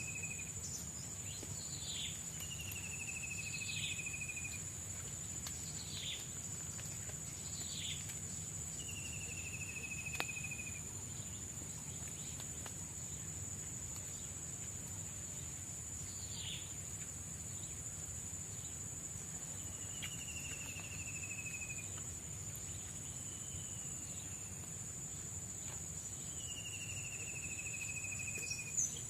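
Tropical forest insects keeping up a steady, high-pitched drone, with short falling calls repeated every second or two over it. There is a single sharp click about ten seconds in.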